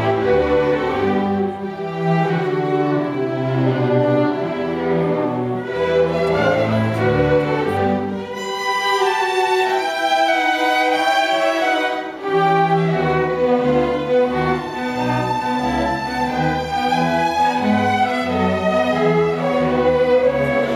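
A string orchestra of violins and cellos plays live. About eight seconds in, the low strings drop out and the violins play on alone, and the cellos come back in about four seconds later.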